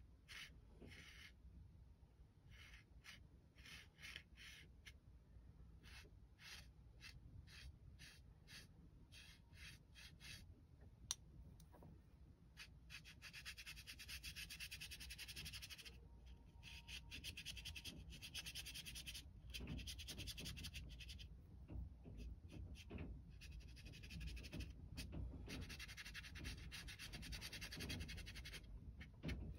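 Paintbrush dragged on its side across medium-grain watercolour paper, its bristles faintly scratching over the paper's grain. Short separate strokes at first, then longer scrubbing strokes from about halfway through.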